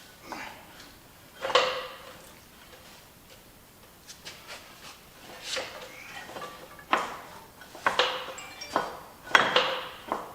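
Metal clanks and knocks as a heavy track is worked back onto a stump grinder's undercarriage. There is one sharp hit about a second and a half in, then a run of hits through the last few seconds.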